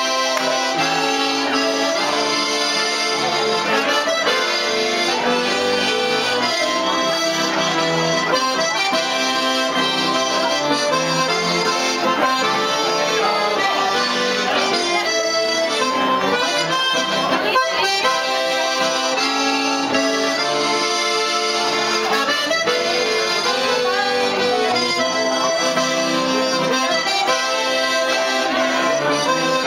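Piano accordion playing a tune over held chords, with steady, continuous music.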